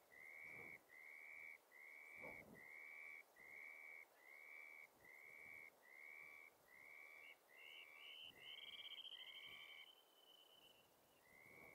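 A steady series of short, high whistled calls, just under two a second. A second, higher trilling call joins about seven seconds in and fades out about ten seconds in. The series pauses about ten seconds in and starts again near the end.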